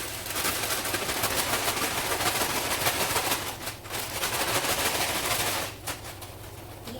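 Food sizzling and crackling in hot oil in a frying pan, a dense run of fine pops that dies down about six seconds in, over a low steady hum.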